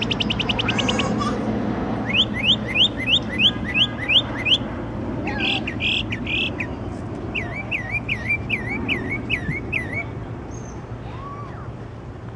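A songbird singing a varied song: a fast trill at the start, then a run of about eight rising whistled notes, a short burst, and a run of about eight swooping notes, stopping about ten seconds in. A steady low hum runs underneath.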